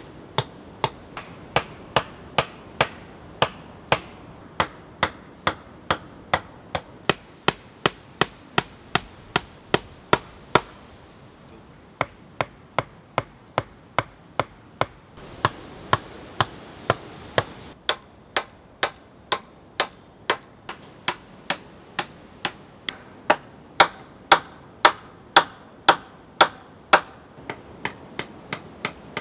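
Hammer blows on green wooden poles being joined into a frame, a steady run of sharp strikes about two a second, with a short pause about eleven seconds in.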